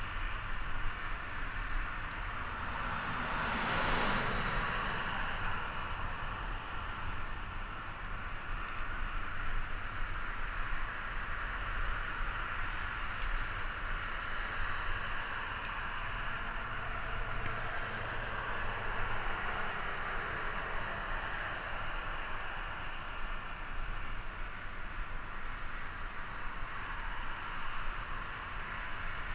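Steady hiss of freeway traffic beside the path, with one vehicle passing close and swelling then fading about four seconds in. Wind rumbles on the microphone underneath.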